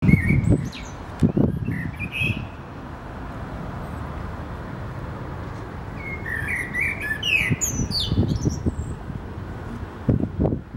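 Common blackbird singing: short fluty warbling phrases, a longer one about six seconds in that ends in high squeaky twitters. Bursts of low rumble are louder than the song, right at the start and again later.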